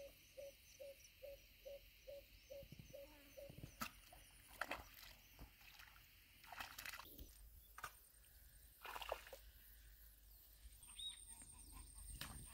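Near silence outdoors: a faint run of evenly spaced low calls from an animal, about four a second, for the first three seconds or so, then only scattered faint rustles and clicks.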